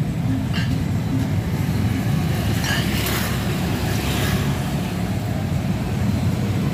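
Street traffic, mostly motorbikes, running past as a steady low rumble, with a couple of brief louder rushes about three and four seconds in.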